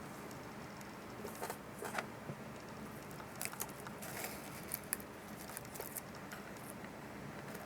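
Small clicks, taps and rustling scrapes of hands handling a small radio and its parts during repair, in irregular clusters about a second in and again in the middle, over a faint steady hiss.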